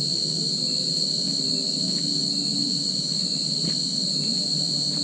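Steady, high-pitched chorus of insects such as crickets or cicadas, unbroken and even, over a low steady rumble.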